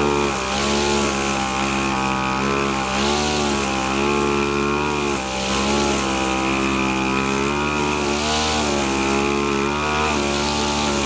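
Backpack two-stroke brush cutter running near full throttle, its engine pitch sagging briefly and recovering every second or two as the cutting head bites into grass with each swing.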